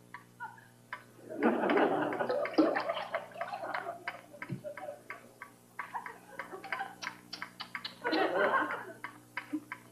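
Studio audience laughing in two bursts, the first a few seconds long and the second shorter near the end, over a run of quick, irregular drips of water from a leaking roof.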